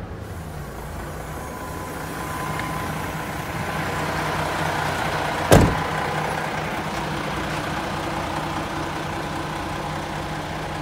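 Hino Profia heavy truck's diesel engine idling steadily. A single sharp thump about halfway through is the loudest sound.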